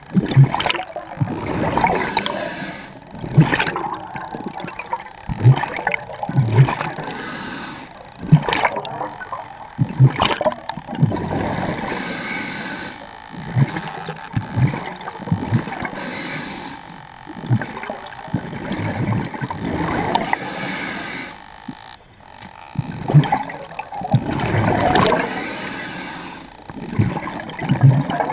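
Scuba diver breathing through a regulator underwater: a hissing inhale about every four to five seconds, each followed by a long rush of exhaled bubbles gurgling and rumbling past the mask.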